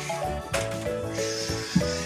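Background music: a repeating melody of stepped notes over a steady bass line, with one sharp knock near the end.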